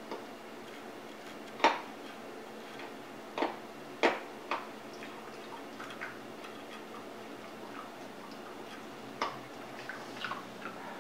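A handful of sharp, irregular clicks or light taps, loudest about one and a half and four seconds in, over a faint steady background hum.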